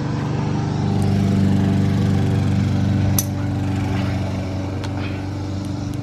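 Lawn mower engine running steadily, with a few short sharp clicks over it.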